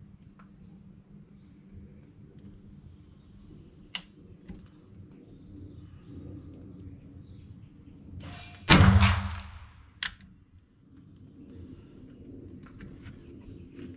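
A single shot from a black-powder muzzle-loading rifle fired in an indoor range: a brief rushing sound runs straight into one loud report about nine seconds in, which echoes and dies away over a second or so. A sharp click comes several seconds before the shot and another just after it.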